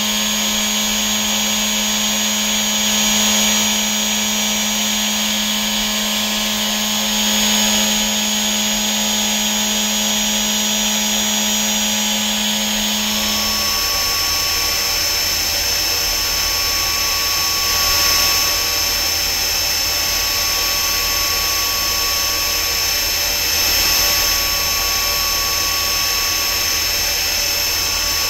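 Machining-center spindle driving a 1 mm solid carbide micro drill peck drilling under flood coolant: a steady machine whine with several tones over the hiss of coolant spray. About halfway through the sound changes and its low tone drops, as the drill goes from non-ferrous metal at high spindle speed to stainless steel at a lower speed.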